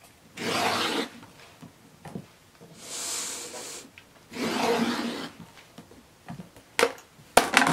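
Rotary cutter blade drawn through a stack of cotton quilting squares along an acrylic ruler on a cutting mat, in three strokes each about a second long. Near the end come a few sharp clicks as the ruler is knocked and shifted.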